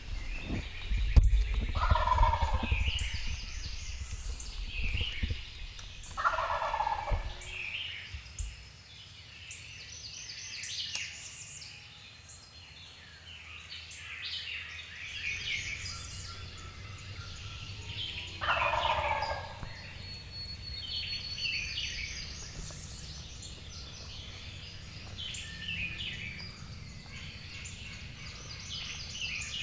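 Wild turkey gobbler gobbling three times: a rapid rattling call about two seconds in, again about seven seconds in, and once more near nineteen seconds. Songbirds chirp and sing throughout, and there is a low rumble on the microphone near the start.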